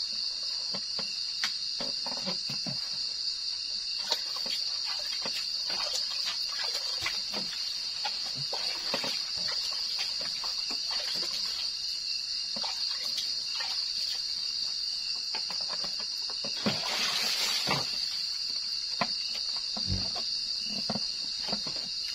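Steady high-pitched chorus of crickets at night, with scattered splashes and knocks of water being scooped and poured as someone washes their feet, and a louder pour of water about three-quarters of the way through.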